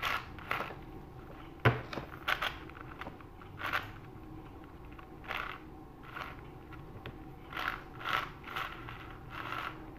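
YuXin Little Magic 6x6 speed cube being turned by hand: irregular short plastic clicks and scrapes as its freshly tightened layers turn, with one sharper knock about two seconds in.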